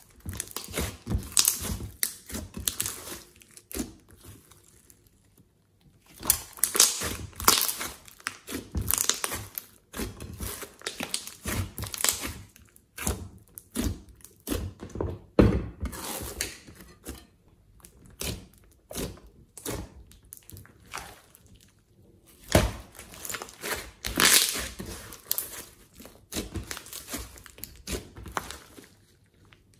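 Glossy slime with clay mixed in being squeezed, stretched and folded by hand, giving irregular wet squelches and crackling pops, with a short lull about five seconds in.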